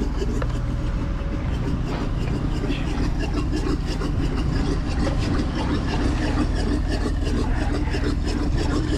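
Engine running steadily at idle, with a continuous low hum and light mechanical clatter.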